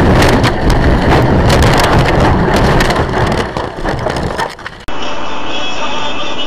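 Car crash: a loud, long crunching and clattering of impact, full of sharp cracks, lasting about five seconds. It cuts off abruptly and a steady drone follows.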